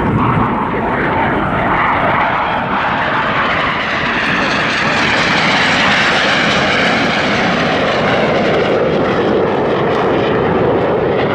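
Jet noise from Red Arrows BAE Hawk T1 jets, the synchro pair, flying past during their crossing manoeuvre. It is a loud, steady rushing roar that swells a little midway.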